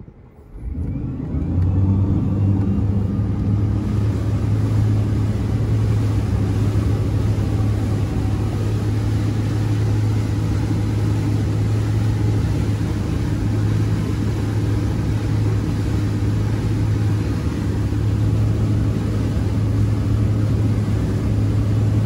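Malibu Monsoon 575 supercharged 6.2 L V8 inboard engine pulling the boat up to wakesurf speed. It swells about a second in, then holds a steady low drone under a rush of wind and water.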